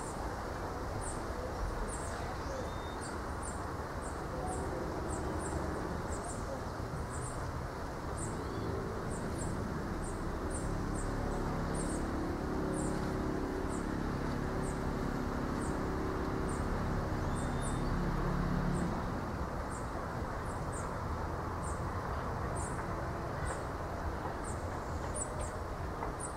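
Wind through coconut palm fronds with an outdoor rural background. A short, high chirp repeats about twice a second throughout. A low, steady hum rises from about eight seconds in and stops around nineteen seconds in.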